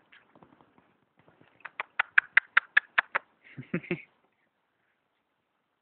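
A person making rapid kissing or clicking noises with the mouth, about five a second, to call puppies. A brief, lower scuffling noise follows.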